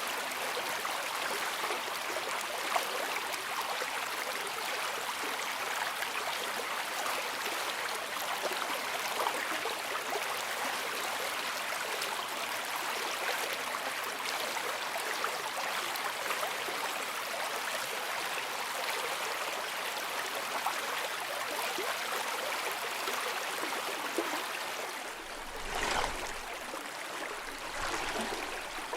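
Steady underwater bubbling and rushing water, with two low swells near the end.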